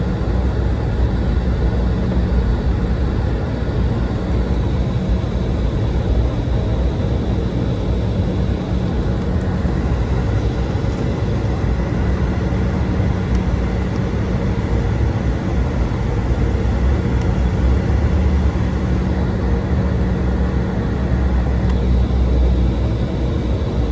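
Cabin noise of an Embraer E175's twin GE CF34-8E turbofans at low taxi thrust, heard inside the cabin over the wing: a steady low hum with a faint high whine.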